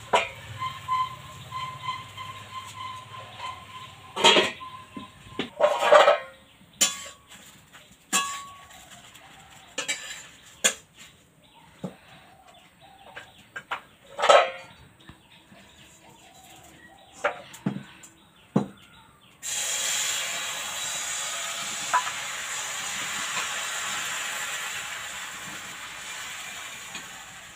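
Steel utensils knocking and clinking against a steel kadai, then, about two-thirds through, a sudden steady sizzling hiss that slowly fades: rice-and-black-gram batter for chakli pitha frying in the hot pan.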